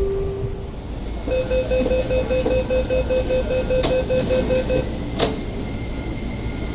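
MTR East Rail Line IKK-train's door-closing warning: a rapid electronic beeping, about four beeps a second for three and a half seconds. After it comes a sharp knock as the doors shut, then a steady high tone from the train. A falling motor whine fades out in the first second.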